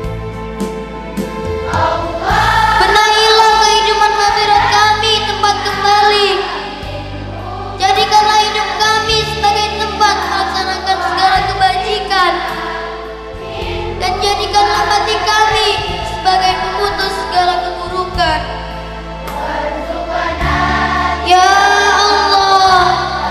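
A group of voices singing together in long held phrases with vibrato, over accompanying music, with short pauses between phrases.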